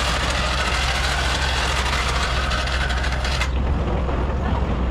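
Vehicle driving, a steady low engine rumble with road noise over it; the hiss drops away about three and a half seconds in.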